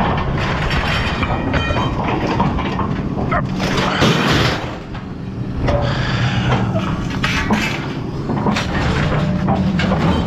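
Scrap metal clanking and clattering as it is unloaded, sharp knocks with a few short metallic rings, over a steady low engine rumble.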